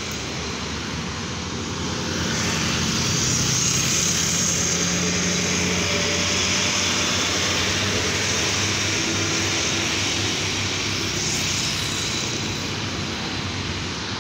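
Diesel trucks pulling up a hill, engines running hard, mixed with motor scooters passing. The sound swells about two seconds in and stays loud, with a green Hino tractor unit hauling a shipping container in the traffic.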